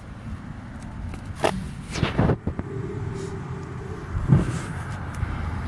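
A few short knocks over a low outdoor rumble of wind on the microphone, with a faint steady hum in the middle.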